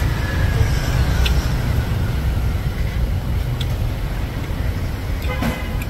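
Street traffic: cars and motorbikes passing close by, a steady low rumble.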